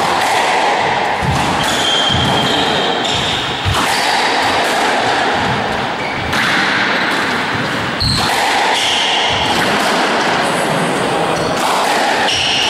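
Squash rally: the ball knocked by rackets and off the walls and wooden floor in quick, irregular knocks, with short high squeaks of court shoes on the floor, over steady background noise.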